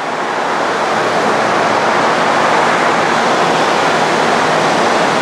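Steady rushing noise of a Model 230 high-speed vertical bandsaw running with no workpiece in the cut, its 3/4-inch scallop-edge knife blade travelling at about 3,000 feet per minute. The noise swells over the first couple of seconds, then holds even.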